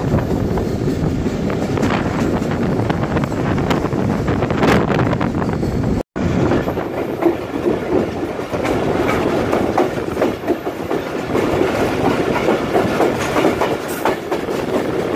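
Express passenger coach running at speed, its wheels and carriage rattling on the track, heard from the open coach door. The sound cuts out for a moment about six seconds in, then carries on the same.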